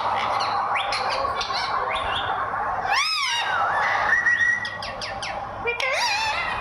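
Parrot calling: a run of warbling squawks and whistles that swoop up and down in pitch, with a short held whistle a little past the middle, over steady background noise.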